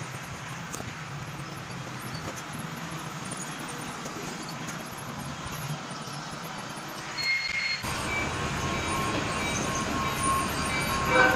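Steady room noise around a running model railroad layout, with a model train moving on the track. About seven seconds in there is a short high beep, and then the sound jumps louder, with brief repeated tones on top.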